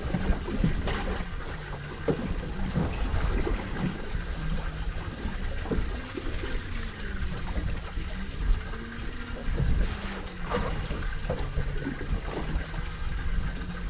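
Water sloshing and splashing against a boat's hull, with scattered knocks and a low steady hum underneath.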